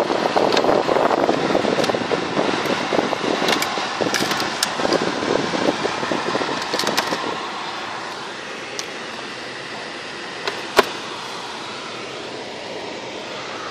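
Steady mechanical hum inside a car cabin, with rustling and many small clicks from handling and interior fittings for the first half or so, then an even, quieter hum. One sharp click about eleven seconds in.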